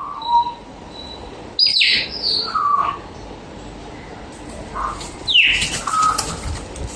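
Birds calling: two loud harsh calls that slide down in pitch, about one and a half seconds in and again past the middle, with shorter chirps in between.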